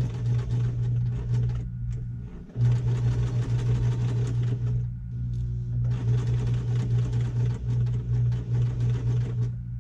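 Electric domestic sewing machine stitching a diagonal seam through two strips of fabric, running in short stretches with two brief pauses, about two seconds in and around five seconds in.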